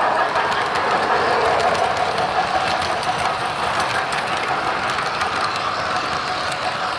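O gauge model freight cars rolling past on floor track behind a steam switcher: a steady rolling rumble of metal wheels on the rails with light clicking. It eases off a little as the caboose goes by near the end.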